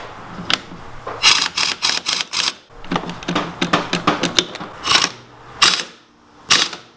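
Pneumatic air impact wrench hammering on a strut mount nut in a run of short bursts, trigger pulled and released several times.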